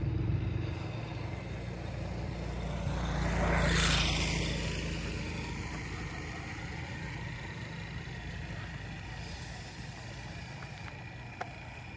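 A road vehicle passing by. Its noise swells to a peak about four seconds in, then fades away over the next several seconds.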